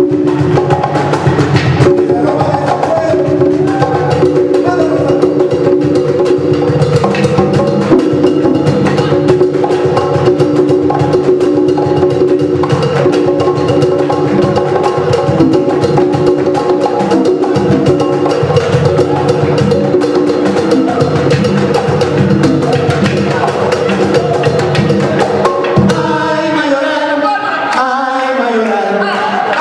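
Afro-Peruvian band playing live: cajón and congas keep a dense rhythm under steady guitar and keyboard chords. Voices come in singing about four seconds before the end.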